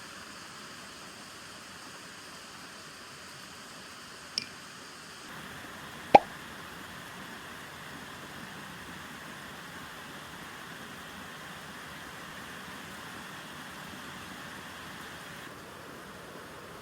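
Steady rain hiss, with two sharp drips about four and six seconds in, the second the louder, dropping quickly in pitch.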